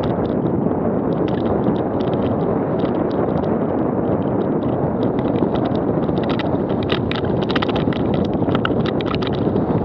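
Downhill mountain bike descending a dirt trail at speed: steady wind buffeting on the microphone and tyre rumble, with rapid clattering and rattling from loose stones and the bike's chain and frame, busiest in the second half where the trail turns rocky.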